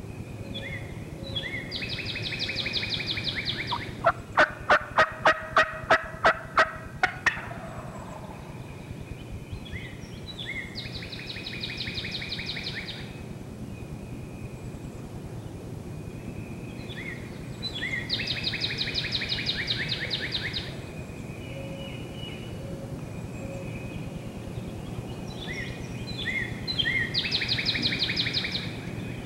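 Wild turkey gobbler gobbling four times, about eight seconds apart. About four seconds in comes a run of about nine loud, evenly spaced turkey yelps.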